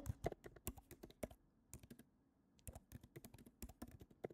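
Faint typing on a computer keyboard: a quick run of key clicks with a couple of short pauses.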